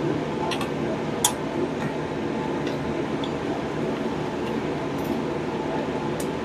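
Light clicks and taps of hand tools and metal parts during work on an engine, the sharpest about a second in, over a steady background hum.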